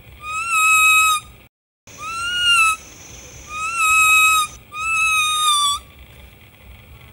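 Leaf whistle blown by mouth, a reedy, buzzy tone: four long notes of about a second each. Each note swings up in pitch at the start and then holds steady, with short pauses between them; the sound drops out completely for a moment after the first note.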